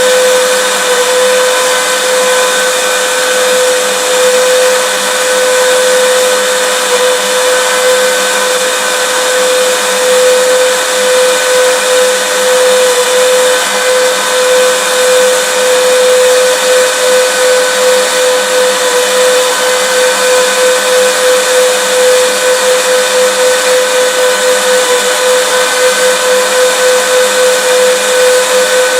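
Vacuum cleaner running steadily: a high motor whine over a broad rushing hiss, with a slight regular wavering in level in the second half.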